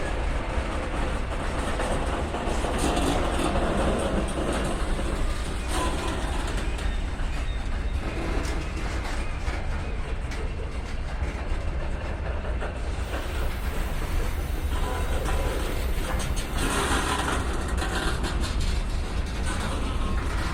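BNSF freight train's cars rolling past, a steady rumble of wheels on rail with repeated clicks and clacks from the wheels and couplings.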